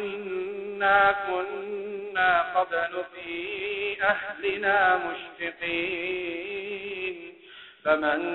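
A man reciting the Quran in melodic tajweed chant, drawing out long wavering notes with brief pauses for breath between phrases.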